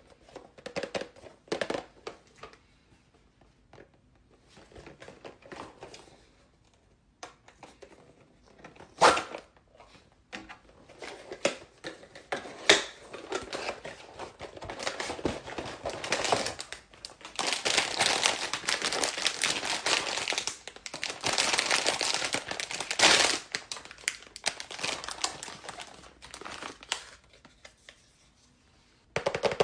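Plastic packaging crinkling and tearing as a blind box is handled and opened, with a few sharp snaps and a long stretch of continuous crinkling past the middle.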